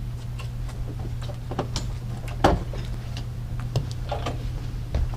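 Footsteps and light knocks on a boat's deck, scattered and uneven, the loudest about halfway through, over a steady low hum.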